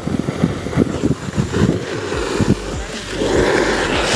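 Plastic-bodied ground chakkar (ground-spinner firework): the lit fuse sputters and crackles, then about three seconds in the spinner catches and gives off a loud, steady hissing rush of sparks.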